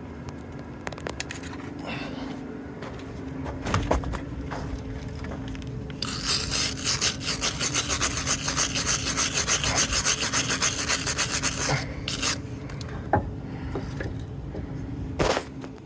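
Wire brush scrubbing hard and fast on metal for about six seconds, cleaning the slag off a fresh flux-core weld on rebar, with a few knocks before and after. A steady low hum runs underneath.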